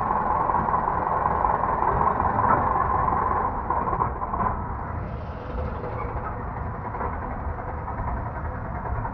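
Diesel tractor engines running steadily, one of them pulling a trolley loaded with earth through sand. The engine sound is strongest over the first four seconds, then eases a little.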